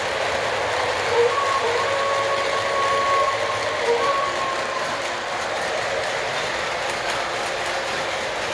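Model train locomotive's sound system running, with a steady running noise and its whistle blown twice: a long blast about a second in and a short one about four seconds in.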